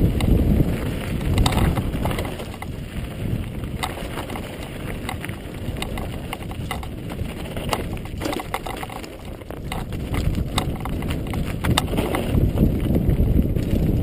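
Mountain bike clattering and rattling down a rocky trail, with many sharp knocks of tyres and frame over loose stones. A heavy wind rumble on the microphone runs under it, strongest at the start and over the last few seconds.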